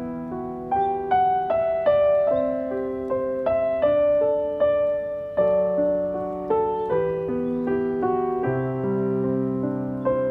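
Background piano music: a slow, gentle melody of single struck notes, each fading away, over held lower notes.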